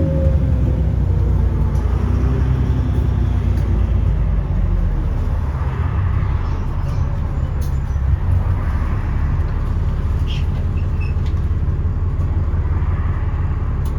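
Alexander Dennis Enviro400 double-decker bus running on the road: a steady low diesel engine rumble with road noise, and a pitched whine that dies away in the first second or two.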